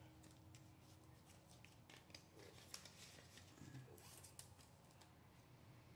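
Near silence, with faint scattered ticks and light rustles of paper, such as paper bills and envelopes being handled.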